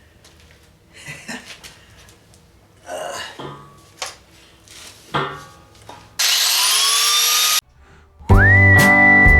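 A few quiet knocks and handling sounds, then a handheld power tool used to strip the metal winds up for about a second and a half, its pitch rising and levelling off before it cuts off sharply. Acoustic guitar music with a held whistled note comes in near the end.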